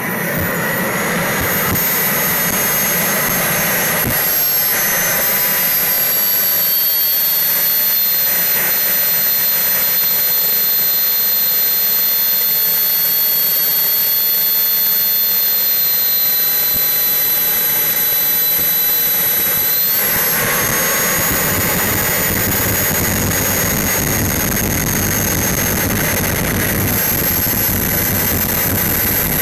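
JetsMunt M70XBL model jet turbine running, heard close up from a camera mounted on the model's fuselage: a steady loud rush with a high whine. The whine falls in pitch a few seconds in, holds, then rises sharply about twenty seconds in as the turbine spools up.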